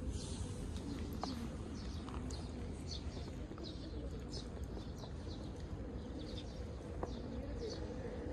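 Small birds chirping, short high chirps a few times a second, over a steady low rumble.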